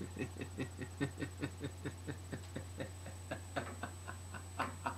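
A man laughing in a long, even run of short, quick 'ha' pulses, about five a second, over a steady low hum.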